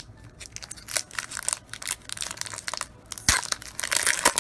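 A Pokémon TCG booster pack's foil wrapper being crinkled and torn open, a run of sharp crackles that is loudest about a second in and again over the last second or so.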